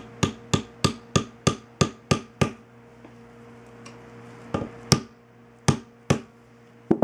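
Plastic-faced mallet rapping on a Mosin-Nagant bolt head to seat the reinstalled extractor: a quick even run of about nine taps, a pause of about two seconds, then a few more spaced taps.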